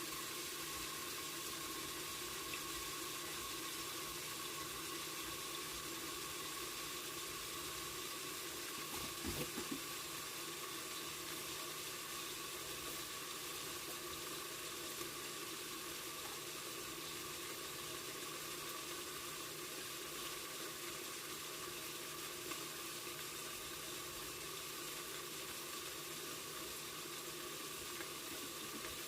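Pork frying under a lid, a steady sizzling and bubbling as the meat browns, with a brief clatter about nine seconds in.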